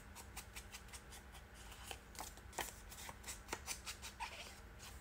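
Paper edge being inked with a hand-held ink blending tool: faint, quick, irregular scratchy swipes and taps of the tool on the paper, several a second.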